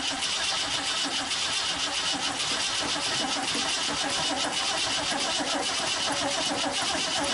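Ford 390 FE V8 being cranked by its starter, turning over steadily with a regular pulsing rhythm but not catching. It won't fire because the Holley 750 four-barrel carburetor, its bowls packed with gunk and its accelerator pump squirters plugged, is not delivering fuel.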